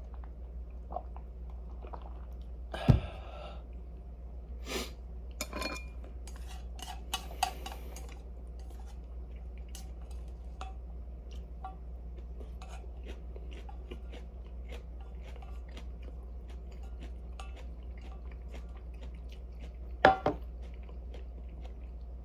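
Eating at a table: chewing with the knock and clink of dishes and utensils, loudest about three seconds in and again as a double knock near the end, with smaller clatters between, over a steady low hum.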